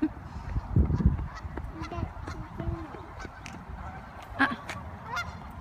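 A flock of geese honking in scattered calls, louder a little after four seconds in. The geese are alarm-calling as a dog chases them off.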